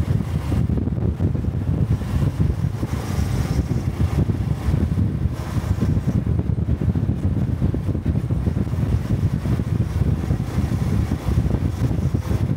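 Honda Cub 125 cc single-cylinder motorcycle engine running steadily while riding, with wind buffeting the microphone.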